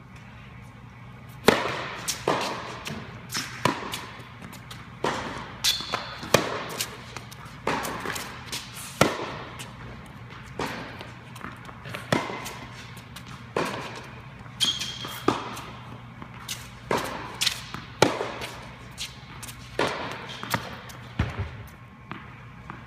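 Tennis balls struck by racquets and bouncing on a hard court in a rally, each crack echoing in a large indoor hall, over a steady low hum.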